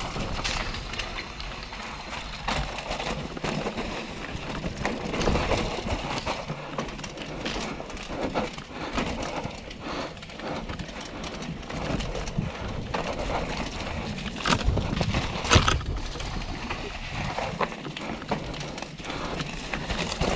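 Mountain bike descending a dirt forest trail at speed: tyres rolling and crunching over dirt and leaf litter, the bike rattling and knocking over roots and bumps, with wind on the microphone. Two hard knocks come about three-quarters of the way through.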